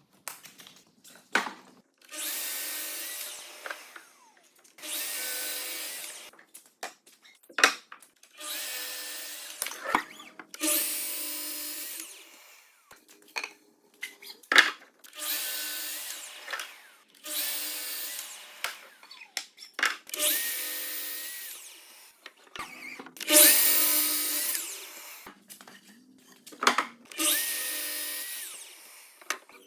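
Festool power saw making a series of short cuts through wooden beams: about ten bursts of a couple of seconds each, a few seconds apart, with knocks and clicks of the wood being handled between cuts.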